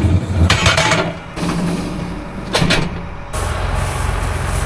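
Vehicle engine running steadily, with two brief loud noises over it in the first three seconds; about three seconds in it changes suddenly to a steadier, even engine hum.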